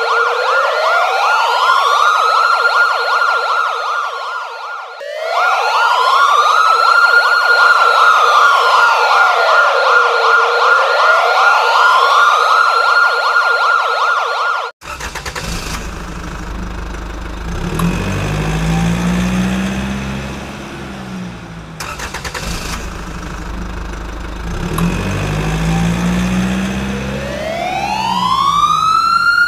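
Electronic police siren in a slow wail, rising and falling about once every five seconds. About halfway through it cuts abruptly to a rougher, rumbling recording with fainter, lower siren sweeps. Near the end the high wail rises again.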